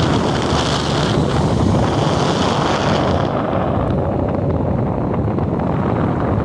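Electric fan running, its airflow hitting the microphone as a loud, steady rushing noise. About three seconds in, the hiss eases while the low rush goes on.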